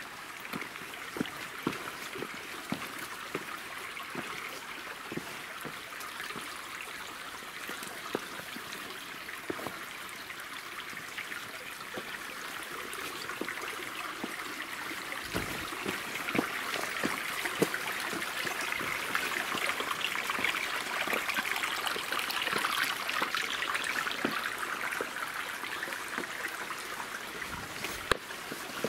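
Shallow stream trickling over rocks, steady, growing louder about halfway through. Scattered short clicks and knocks sound over it.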